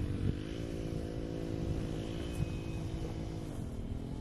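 A motor engine drones steadily, its pitch rising slightly just after the start and falling away near the end, over a low wind rumble on the microphone.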